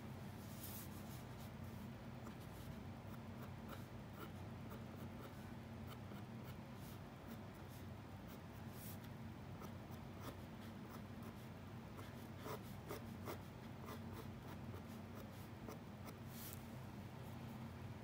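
A drawing tool scratching and rubbing on paper in short, faint strokes, with a few louder strokes, over a steady low hum.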